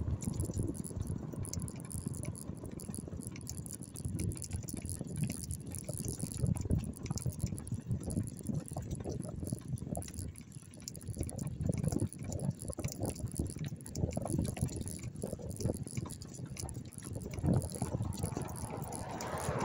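Riding noise of a bike on a rough off-road track: an uneven low rumble that swells and fades, with rattling.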